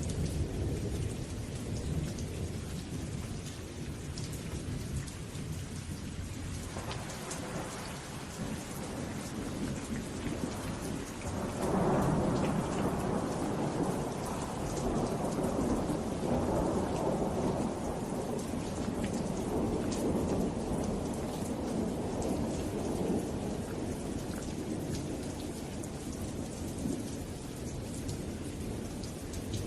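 Steady heavy rain falling, with thunder rumbling low underneath; a louder, longer roll of thunder swells up about twelve seconds in and slowly dies away.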